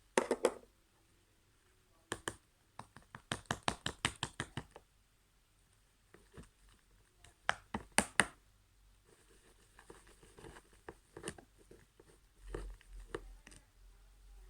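Sticky clicks and pops of slime being scooped out of its container and handled. A quick run of about six clicks a second comes a few seconds in, with a couple of louder snaps near the middle and softer scattered clicks after.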